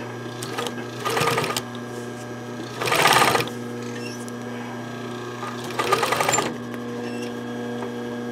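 Domestic sewing machine stitching through terry towel and zipper tape in three short bursts, about one, three and six seconds in, the middle one the loudest, over a steady low hum.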